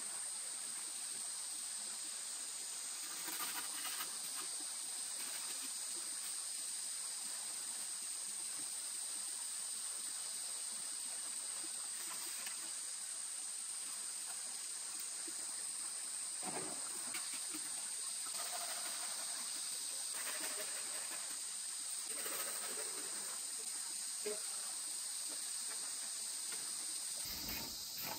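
Steady, high-pitched insect chorus of crickets or cicadas, with a few faint rustles and knocks now and then.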